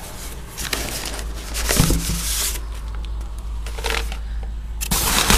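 A cardboard shipping box being opened by hand, its flaps and packing material rustling and scraping in irregular bursts, busiest near the end.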